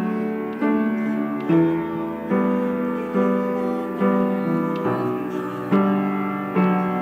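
Instrumental music: a slow melody of struck, piano-like notes, a new note about every 0.8 s, each dying away before the next.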